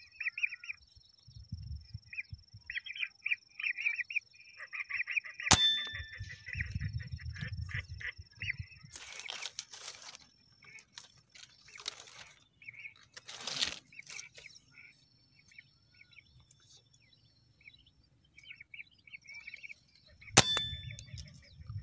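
Two gunshots about fifteen seconds apart, each a sharp crack with a short metallic ring, fired at whistling ducks. Between them the ducks give bursts of short chirping whistles.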